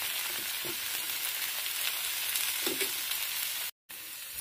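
Thin ragi rava dosa frying on a hot oiled tawa, sizzling steadily as its underside crisps. The sound cuts out for a moment near the end and comes back quieter.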